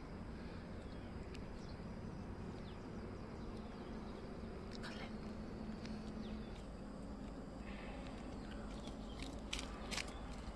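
Steady low outdoor background noise with a few brief, sharp animal calls or chirps: one about halfway through and three in quick succession near the end.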